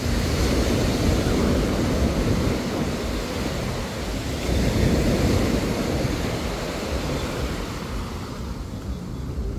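Small surf washing onto a sandy beach, with wind buffeting the microphone. The wash swells louder at the start and again about halfway through.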